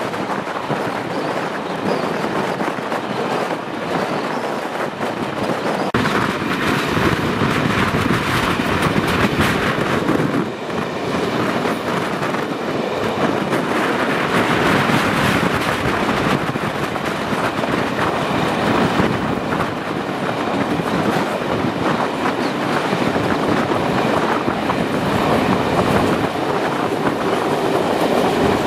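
Steam-hauled train of class 01 locomotive 01 202 running, heard from an open carriage window: a steady rolling rush with the clatter of wheels over the track, stepping up in loudness about six seconds in.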